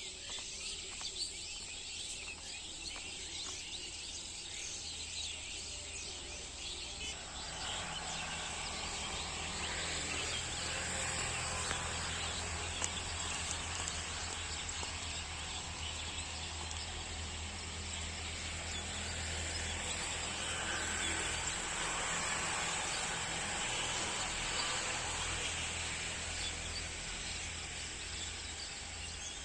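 Outdoor ambience of many small birds chirping from a tree, over a steady high insect drone. About seven seconds in, a low rumble comes in and lasts until near the end.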